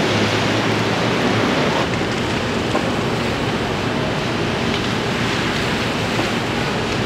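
Steady hiss of heavy rain on a city street, mixed with the swish of car tyres on wet pavement as vehicles drive past. A low engine hum runs under it for the first second and a half.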